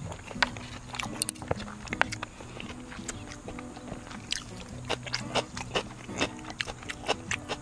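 A person eating jjajang rice close to the microphone: chewing with many short, sharp clicks and taps throughout, over background music.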